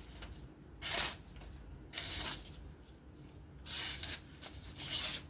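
Wharncliffe folding knife blade slicing through paper in four hissing strokes, about a second in, at two seconds, near four seconds and near five seconds, as a sharpness test.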